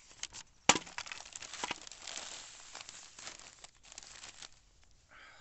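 Newspaper wrapping around a bunch of flowers crinkling and rustling as it is handled. It starts with one sharp crackle and dies away after about four and a half seconds.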